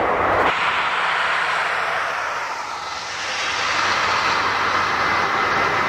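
Jet engines of an Airbus A319 (CFM56 turbofans) on final approach, a steady rushing whine that dips slightly, then grows louder as the airliner nears. The first half-second is the end of a Dash 8-400 turboprop's engine noise before the sound changes abruptly.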